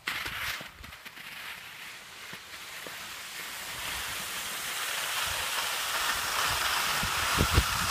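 Skis sliding over snow with wind rushing on the phone's microphone, a steady hiss that grows louder as the skiers pick up speed, with a few low knocks from the phone being handled near the end.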